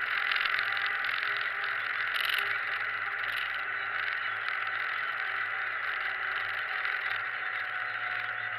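Tractor engine running steadily while driving across a field, heard from inside the cab: an even drone with a constant low hum.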